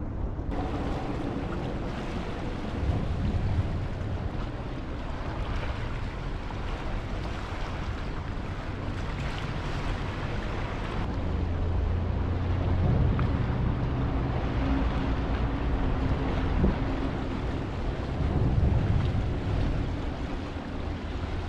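Wind on the microphone over sea noise, with a low engine drone that grows louder in the second half.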